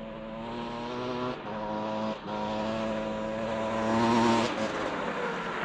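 Motorcycle engine pulling under throttle: a steady engine note broken twice in the first couple of seconds by gear changes, climbing to its loudest about four seconds in, then easing off.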